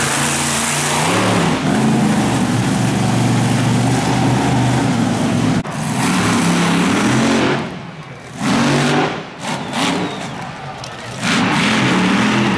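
Monster truck engines revving hard, rising and falling in pitch. The engine note drops away briefly about eight seconds in, then comes back in short blips of throttle before running loud again near the end.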